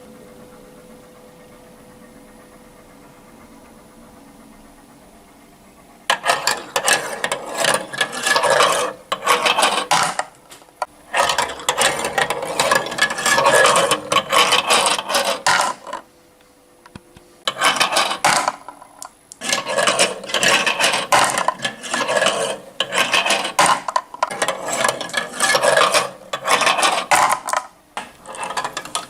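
Marbles rolling and clattering along a marble-run track: dense rapid clicking and rattling in two long stretches with a short break between them. For about the first six seconds there is only a faint steady hum.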